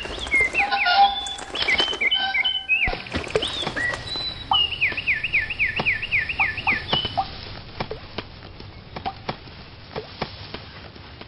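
Cartoon sparrows chirping and twittering, with a quick run of about eight falling chirps, followed by scattered light ticks and taps.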